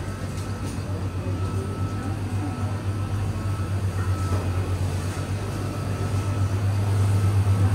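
Steady low mechanical hum of a running vehicle, growing louder near the end.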